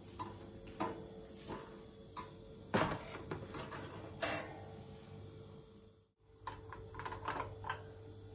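Scattered light knocks and clicks of objects being handled, the two loudest about three and four seconds in, over a steady low hum, with a short drop-out about six seconds in.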